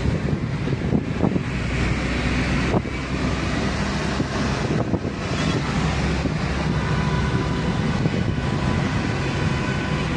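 Steady road noise inside a moving car's cabin: engine and tyre rumble, with some wind on the microphone.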